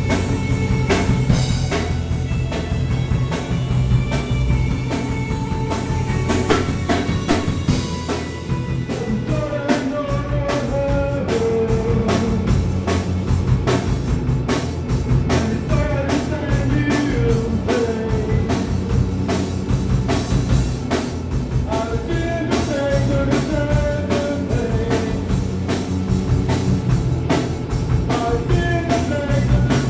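A rock band playing live in a small room: drum kit, electric guitars and a keyboard synth, with a melodic line wandering on top. The drumming turns into a fast, dense run of hits about eight seconds in.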